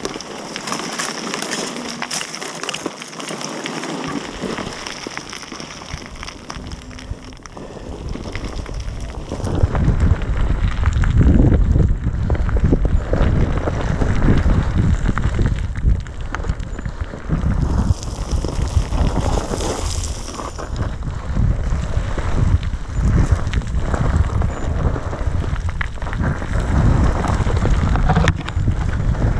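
Enduro motorcycle moving slowly over a loose rocky trail: stones crunching and scraping under the tyres and boots, with wind rumbling on the helmet-camera microphone. The noise grows heavier about ten seconds in.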